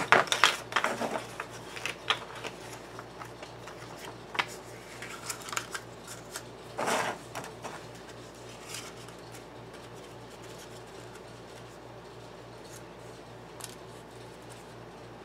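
Light clicks, taps and rustles as a hand-wound subwoofer voice coil on its red former is handled and slid into the magnet gap of a 15-inch speaker's steel basket to check the fit. There is a brief louder rustle about seven seconds in, and the clicks thin out in the second half.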